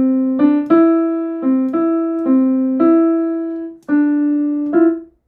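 Portable digital piano played one note at a time, a slow simple melody of about ten notes, each struck and left to ring and fade, with a brief break about four seconds in.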